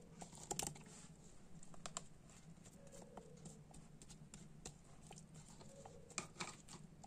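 Faint, irregular soft clicks and taps as sliced strawberries are set down and pushed into place with a silicone spatula on the chocolate layer of a cake in a round pan.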